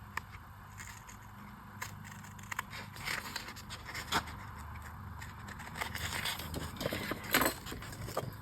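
Scissors cutting paper sticker sheets and journal pages, with short snips and paper scraping and rustling at irregular intervals, one louder scrape about seven seconds in.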